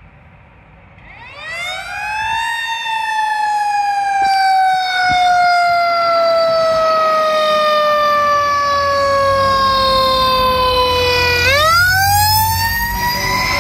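Fire apparatus siren on a hazmat response truck, rising in pitch, then falling slowly for about nine seconds before rising again near the end. The truck's engine rumble grows as it passes close.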